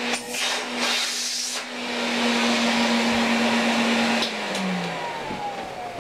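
Filter Queen Majestic 95X canister vacuum cleaner running steadily. A little over four seconds in it is switched off, and its motor winds down with a falling whine.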